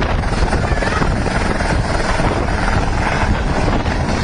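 Helicopter running close by, loud and steady, with a rapid regular chop of the rotor blades under a broad rush of engine and air noise.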